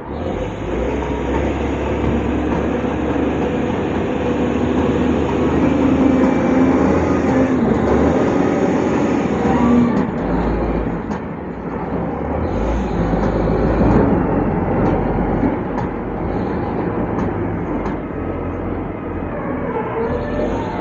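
Heavy diesel engine of earthmoving machinery working under load, a steady low drone that swells and eases several times as the load changes, with a few short knocks in the second half.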